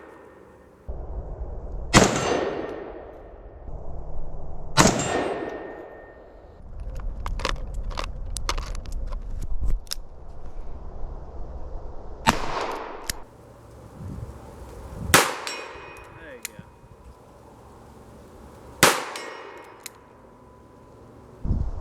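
Five rifle shots at steel targets, irregularly spaced, each a sharp crack followed by the ringing clang of struck scrap steel that dies away over a second or so. A patter of small clicks comes between the second and third shots.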